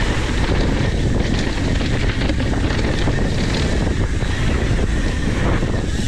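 Wind rushing over the microphone while riding a mountain bike downhill at speed, with tyre noise and light rattling from the bike under it.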